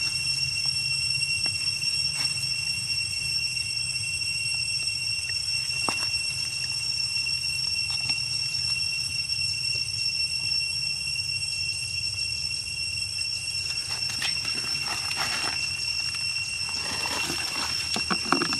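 A steady, high-pitched drone of insects (an outdoor insect chorus) over a low hum, with a few soft taps and a spell of scuffling and rustling near the end.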